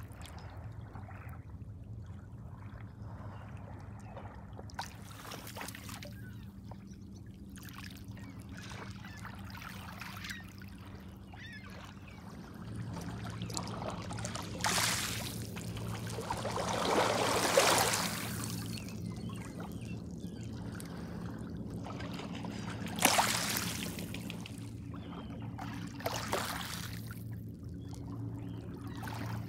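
Small lake waves lapping and washing over a pebble shore, each surge a short wash of water over stones, with the strongest washes in the second half. A steady low hum runs underneath.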